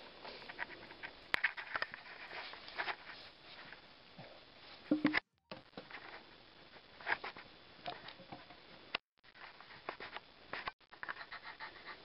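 Scattered light clicks, taps and scrapes of hand tools and gloved hands working on the surface of a log, over a low hiss. The sound cuts out abruptly a few times, about five seconds in, nine seconds in and near the end.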